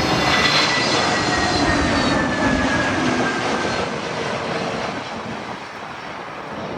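Jet airliner passing low overhead, its engine whine sliding down in pitch as it goes by and the noise fading away over the last few seconds.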